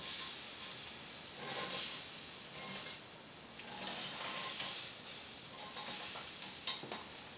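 Æbleskiver batter sizzling in the hot wells of an æbleskiver pan, a steady hiss that swells and fades, with a few light clicks near the end.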